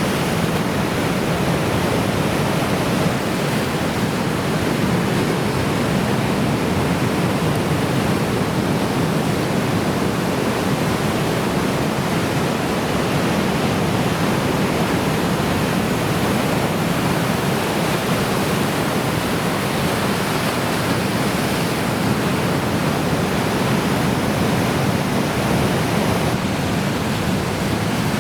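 Heavy typhoon surf: a steady, loud rush of big waves breaking, with no distinct gaps between them.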